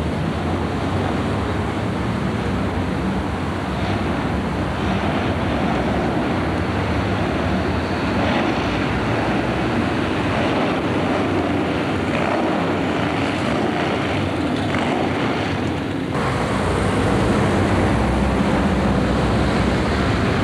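Steady construction-site noise: the diesel engines of tracked hydraulic excavators running, mixed with a wind-like hiss on the microphone. The sound changes abruptly about sixteen seconds in.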